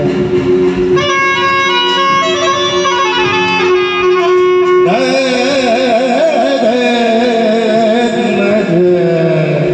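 Sanai (shehnai) playing a melody of long held notes over a steady drone, turning to fast wavering, gliding ornaments about halfway through.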